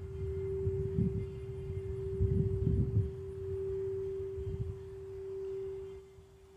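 Quartz crystal singing bowl ringing with one sustained pure tone that slowly swells and fades. A low, uneven rumble lies underneath and dies away about two-thirds of the way through.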